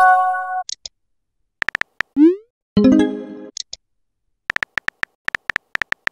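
Chat-app sound effects for a texting story: a short chime of steady tones at the start, a few key-tap clicks, a rising swoop about two seconds in, then a fuller tone that fades. From about four and a half seconds in comes a quick run of keyboard tap clicks as a reply is typed.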